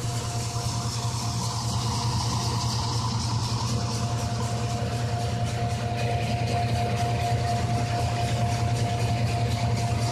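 Tractor-driven hazelnut thresher (patoz) running steadily: a low engine drone with a steady whine over it.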